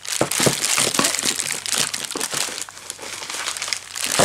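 Clear plastic wrapping crinkling as hands handle a plastic-wrapped bundle of paint cans, with a few light knocks among the rustling.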